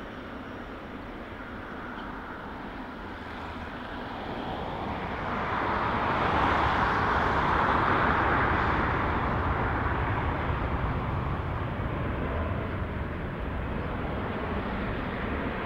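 Jet engine noise of a Boeing 787 airliner on final approach: a steady rush that swells about five seconds in, peaks, then eases off a little.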